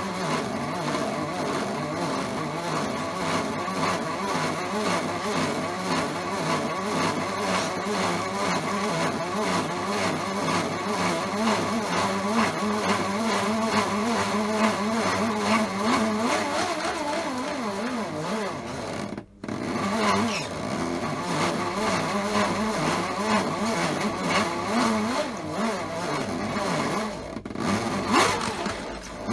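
Small electric motor of a modified toy washing machine running steadily with a wavering whir, cutting out for an instant about 19 seconds in.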